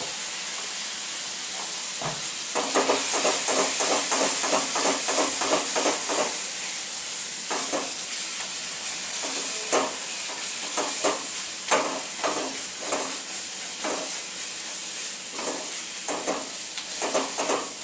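Chopped onion and spices frying in hot oil in a kadhai with a steady sizzle, cooking down until soft. A spatula stirs and scrapes against the pan in quick strokes, about three or four a second, from about two and a half seconds in, then more irregularly.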